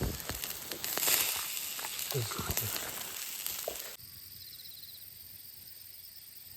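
Food sizzling and crackling over a campfire, with many small crackles over a hiss. About four seconds in it cuts off suddenly to a quieter, steady hiss with faint, rapid high chirps like insects.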